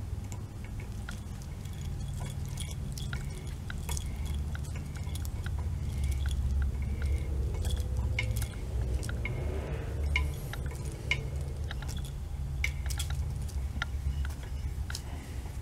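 Scattered light metallic clicks and ticks from a socket ratchet worked on a nut silver-soldered onto a broken bolt, to back the bolt out of the gearcase. A steady low hum runs underneath.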